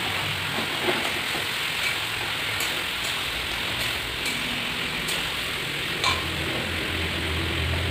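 Spatula knocking and scraping against a metal wok while chunks of smoked pork are stirred, a scattering of sharp irregular clicks over a steady hiss.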